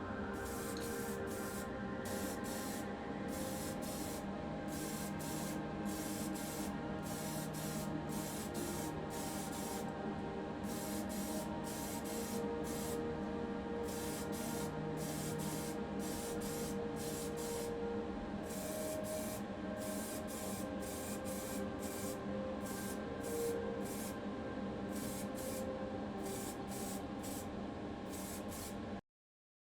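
Paint being sprayed onto a diecast toy casting for its colour coat, in many short bursts of hiss with brief gaps between them, over a steady low hum. The sound cuts off suddenly just before the end.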